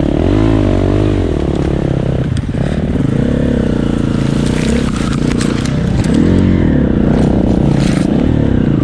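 Dual-sport motorcycle engine running under changing throttle, its pitch rising and falling every second or two, with scattered ticks and scrapes over it.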